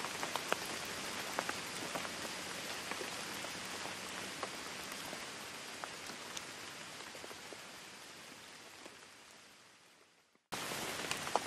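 Rain: an even hiss with scattered drop ticks. It fades out over the last few seconds into a brief silence, then starts again abruptly near the end.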